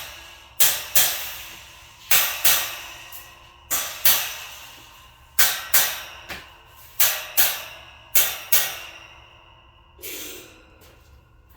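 Metal wire shelf struck again and again to seat it down onto its posts: sharp ringing clangs in pairs, about one pair every second and a half, six pairs in all, then one softer, duller knock near the end.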